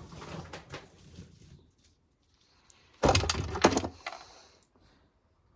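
Dry ears of corn rustling and clicking as they are handled, then about three seconds in a sudden loud crackling clatter of corn lasting about a second.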